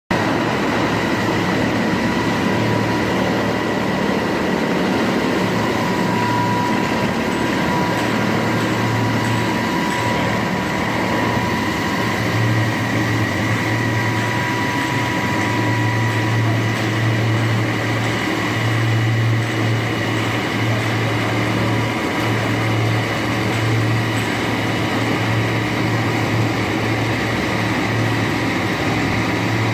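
Terrco direct-drive concrete floor grinder running continuously as it grinds an old oil-stained painted coating off concrete: a steady low hum with a constant whine above it.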